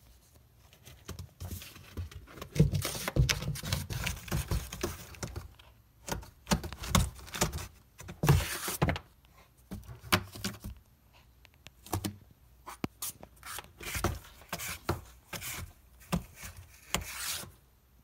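Cat moving about inside a cardboard box: irregular scratches, rubs and soft thumps on the cardboard, coming in clusters with short pauses between them.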